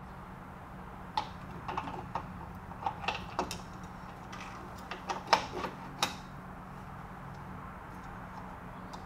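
About a dozen light metallic clicks and taps over the first six seconds as a distributor is lowered and turned into the distributor bore of a Chevy 454 big-block. The engine is not running. A low steady hum runs underneath, and the clicks stop about two-thirds of the way through.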